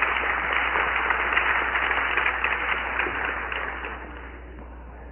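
Audience applauding, thinning out over the last second or so before the recording cuts off abruptly, over a low steady hum.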